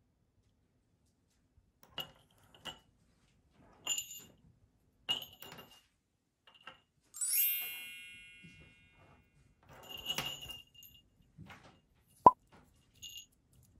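Small metal jingle bells on cat collars jingling and clinking in short bursts as the collars are handled; about seven seconds in one bell rings out clearly and fades over a second or so. A single sharp knock near the end is the loudest sound.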